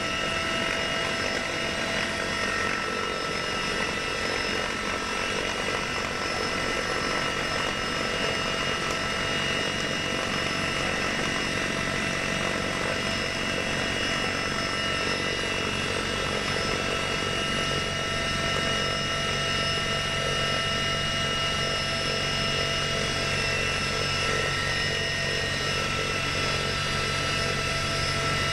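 Heavy transport helicopter heard from inside its cabin at the open cargo-hook hatch: a steady drone of engines and rotor with several steady high whining tones over it.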